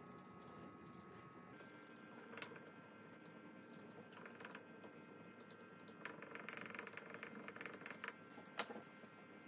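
Faint scratching and tapping of a spatula and mascara wand crushing loose blush powder on paper, breaking up the last chunks before repressing. It comes as a few light scratches, then a denser spell of scratching past the middle, and one sharper tick near the end, over a faint steady hum.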